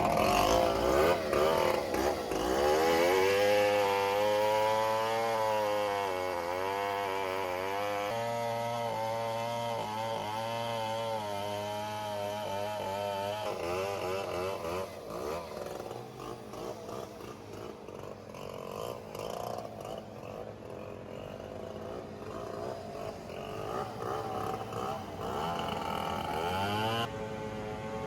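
Diesel engine of heavy logging machinery running under varying load, its pitch rising and falling for about ten seconds, then settling to a quieter, rougher running.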